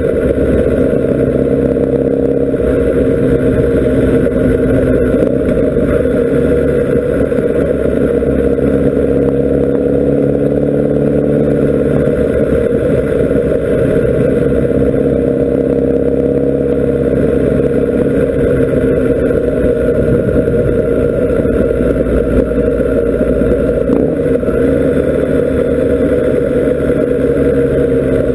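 Kawasaki Ninja ZX-10R SE's inline-four engine running at steady road speed, heard from a camera mounted on the bike, with wind rushing over the microphone. The engine note shifts a little about halfway through and again near the end.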